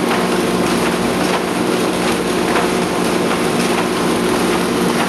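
Rotary die cutter running: a steady mechanical hum and rush with faint ticks at a regular beat.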